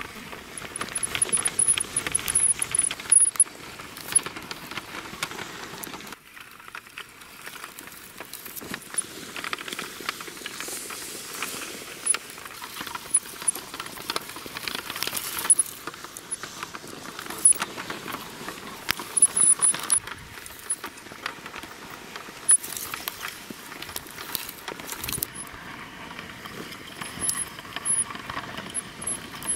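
Diecast toy Hummer H2 pushed by hand over sandy dirt: the gritty scraping and crunching of its tyres through the sand, with frequent sharp clicks, easing off briefly about six seconds in.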